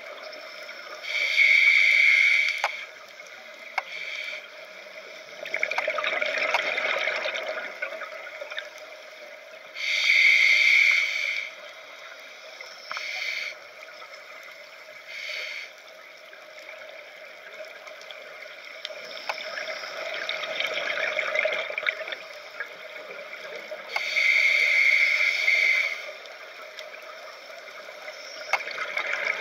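Scuba diver breathing through a regulator underwater: softer hissing inhalations and three loud gushes of exhaled bubbles, about ten to fourteen seconds apart, with a couple of short bubble puffs between. A steady faint hum runs underneath.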